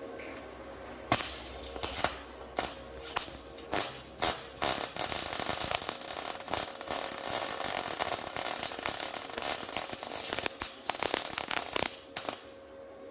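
Welder tacking a sheet-steel floor panel in place: several short tack welds about half a second to a second apart, then a longer stretch of welding with brief breaks, stopping about a second before the end.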